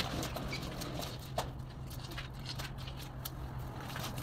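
Brush scrubbing a wet carpet: a run of short, irregular scraping strokes over a steady low hum.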